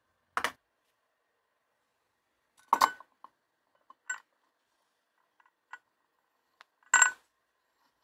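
Metal clinks and knocks as a coffee maker's metal filter holder, holding ground coffee, is handled and fitted under the brew head, its handle swung across to lock it. Several light ticks fall between a few louder clinks, the loudest about three seconds in and again about seven seconds in.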